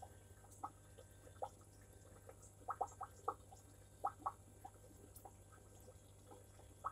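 Faint aquarium water sounds: scattered small drips and plinks over a low steady hum from a running aquarium filter.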